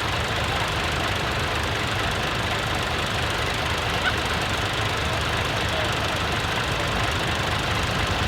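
Classic tractor engine running steadily, with a fast low firing beat.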